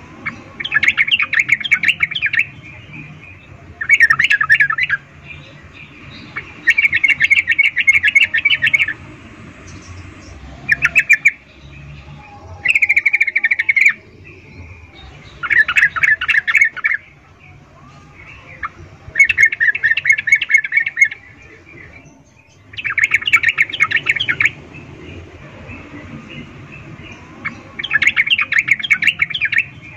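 Yellow-vented bulbul (trucukan) giving bouts of rapid chattering calls, each lasting one to two seconds and repeated about nine times at intervals of a few seconds. This is a female's calling, used to lure and excite male trucukan.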